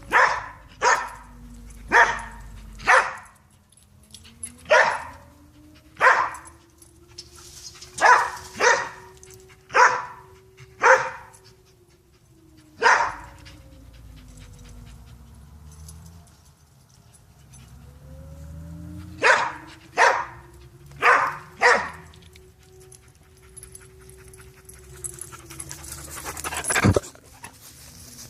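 Springer spaniel barking in short, sharp single barks, about fifteen in all, coming in clusters of two to four with pauses of several seconds between. Behind the barks a faint tone slowly rises and falls, and near the end a rushing noise builds and cuts off.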